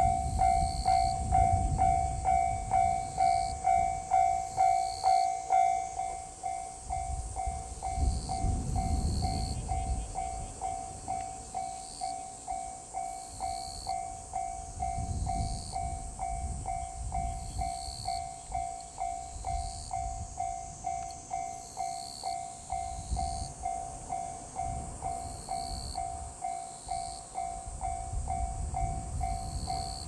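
Japanese level-crossing warning bell ringing in a steady, rapid, evenly repeated ding, the signal that a train is approaching. Low rumbling swells and fades beneath it several times.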